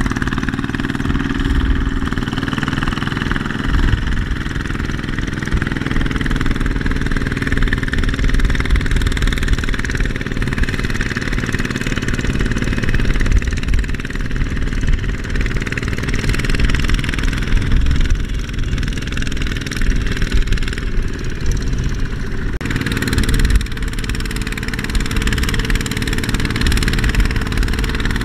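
Kubota power tiller's single-cylinder diesel engine running steadily under load as the walking tractor drags a loaded trailer through mud.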